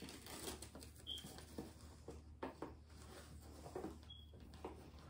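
Faint rustling and rubbing of hands handling a soft leather Coach Brooklyn shoulder bag and feeling around inside it, with two small high clinks, one about a second in and one near the end.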